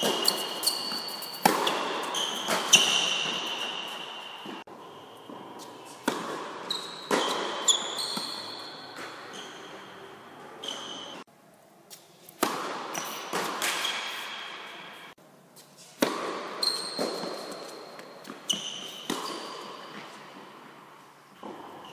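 Tennis rally: balls struck by rackets and bouncing on an indoor hard court, about one hit a second in runs, each hit echoing through the hall. There are two short lulls between rallies.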